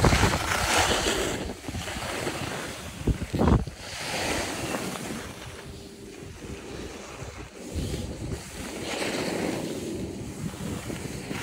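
Wind rushing over the microphone and skis sliding and scraping on snow while skiing downhill. It swells and fades in waves, with a couple of low buffets of wind about three seconds in.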